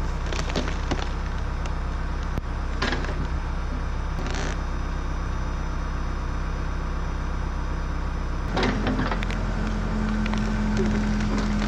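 Backhoe engine running steadily, with a few sharp cracks and snaps of wood as it pulls at a tree or stump. The engine revs up about eight and a half seconds in.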